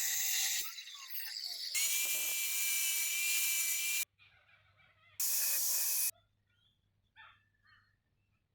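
A high-speed power tool working steel in three bursts, each starting and stopping abruptly. There is a high whine in each burst, and the tool's pitch falls as it spins down after the first one.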